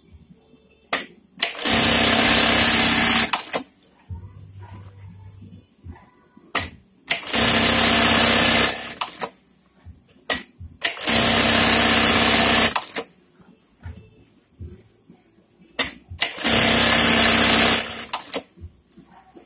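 Juki industrial bartacking sewing machine running four short bartack cycles, each a fast, steady burst of stitching lasting about two seconds. Sharp clicks come between the runs.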